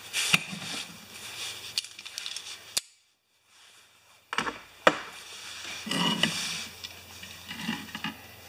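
Workbench handling sounds: sharp clicks and knocks as steel locking pliers are released from a soldered wire, then clinks and rustles of a metal frame being handled. There is a second or so of dead silence in the middle.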